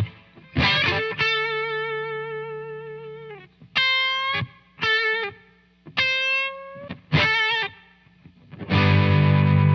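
Electric guitar through a Joyo R-02 Taichi overdrive pedal, a Zen Drive clone meant for a smooth Dumble-style drive. It plays a long single note with vibrato, then a few short notes bent up in pitch, and a full overdriven chord comes in near the end.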